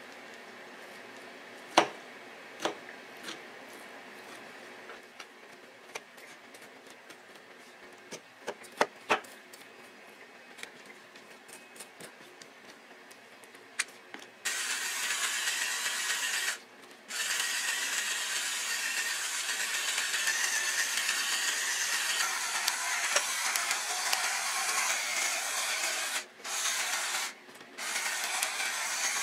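A kitchen knife taps a few times on a cutting board as it nicks the sinew in slices of pork loin. About halfway through, a pepper mill starts grinding black pepper onto the meat in a steady, even grind that stops briefly three times.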